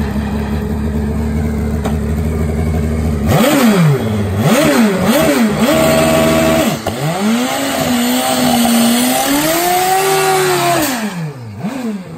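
Turbocharged Kawasaki KZ drag bike's inline-four engine idling, then blipped three times in quick succession. It is then held at high revs for about four seconds during a smoky burnout, and the revs drop away with one last blip near the end.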